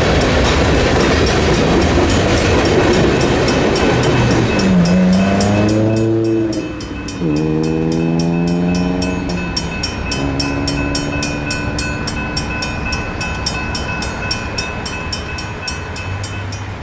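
The last cars of a freight train roll past over a grade crossing, with wheel clatter and rumble. From about five seconds in, a multi-chime locomotive air horn sounds three times, the last blast long and fainter. A crossing bell rings rapidly throughout and stops just before the end.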